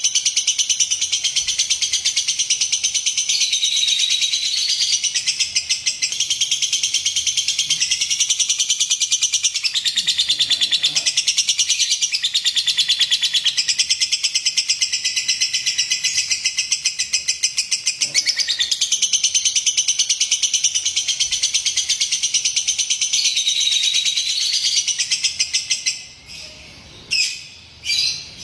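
Lovebird singing a long, fast chattering trill that goes on without a break, then stops near the end and gives way to a few short chirps.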